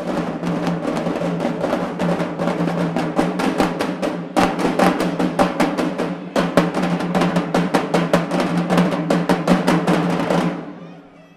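Marching drumline, with bass drums and snare drums, playing a fast, dense cadence. It starts abruptly, breaks briefly about four seconds in, picks back up and stops near the end.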